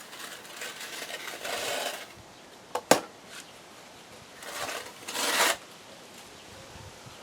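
Notched trowel scraping through a layer of tile adhesive in several strokes, with a single sharp knock about three seconds in.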